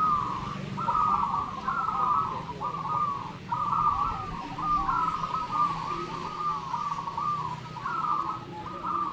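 Zebra doves (perkutut) cooing, several birds at once, their phrases overlapping in an unbroken chorus.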